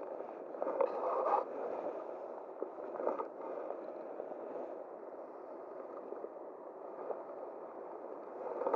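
Steady rush of flowing river water, with a few brief rustles and scrapes about a second in and again about three seconds in.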